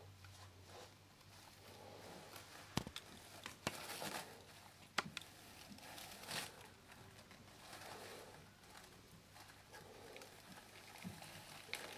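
Faint rustling with a few sharp clicks, three of them close together a few seconds in.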